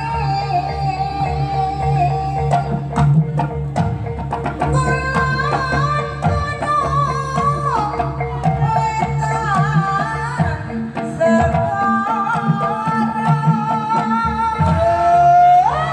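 Javanese barongan accompaniment music: a wavering, sliding melody line over drums and percussion, with a steady low drone beneath.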